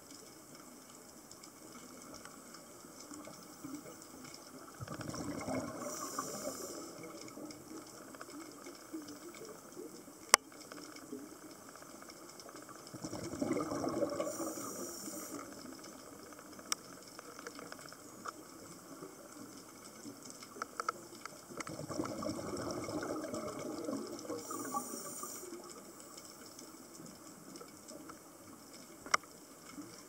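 Scuba diver's regulator breathing underwater: three long rushes of exhaled bubbles about eight seconds apart, with a couple of sharp clicks in between.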